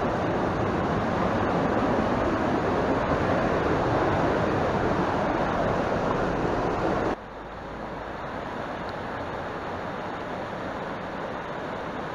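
Rushing alpine mountain stream, a steady roar of white water tumbling over rocks. About seven seconds in it cuts abruptly to a quieter, more distant rush of the same kind of water.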